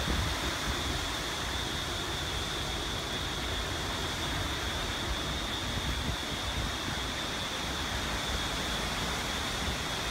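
Hurricane-force wind rushing steadily through palms and trees, with rain, heard as an even, unbroken hiss. Low gusts buffet the microphone, strongest right at the start.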